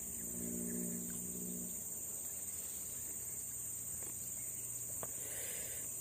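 Insects buzzing with a steady high-pitched drone. A low steady hum sounds under it for the first two seconds.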